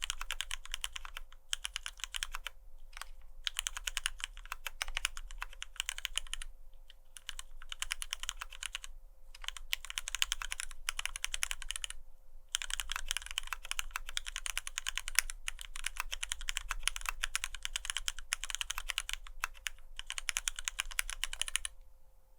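Fast typing on a gasket-mounted custom mechanical keyboard (Geon Works F1-8X) with retooled Cherry MX Black linear switches lubed with Krytox 205g0 and PBT keycaps, in runs of quick keystrokes broken by short pauses. The switch stem shoulders are left unlubed to keep the clack of the upstroke. The typing stops shortly before the end.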